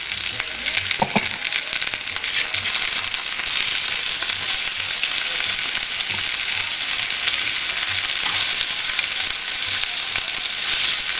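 Chicken pieces frying in hot oil in a small pan: a steady sizzle.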